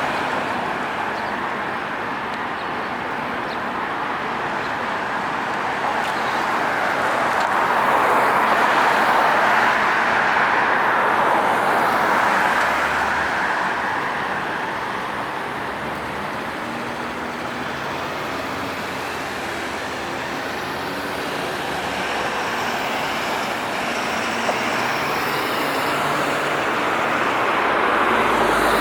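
Steady city road traffic, cars and heavier vehicles going by, the noise swelling and fading as they pass. Loudest about a third of the way in and again near the end, with a low engine drone midway.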